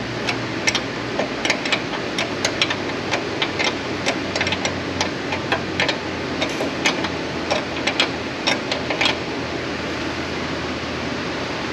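Hand wrench clicking in short, irregular strokes, about two or three a second, as a brake line fitting is run down and snugged; the clicking stops about nine seconds in. A steady hum runs underneath.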